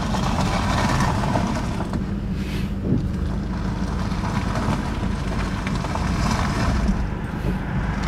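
Car running, heard from inside the cabin: a steady low engine and road rumble.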